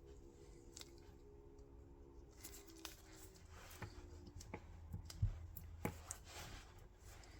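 Faint scraping, small clicks and taps of hand work at a bench while epoxy is spread on the pick's scales and parts, with a few sharper knocks in the second half.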